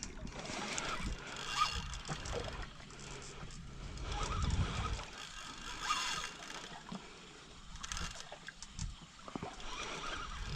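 Water sloshing against the hull of a small boat, rising in a low swell midway, with a few short knocks near the end.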